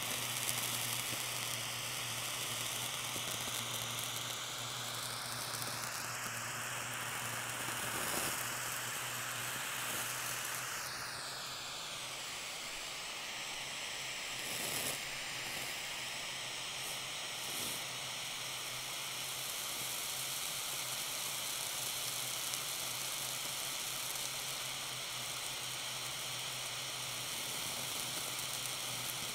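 Small handheld blowtorch hissing steadily as its flame melts blue cheese, the cheese sizzling with a few soft pops. A faint whistling tone in the hiss rises in pitch about five seconds in and drops back down around eleven seconds.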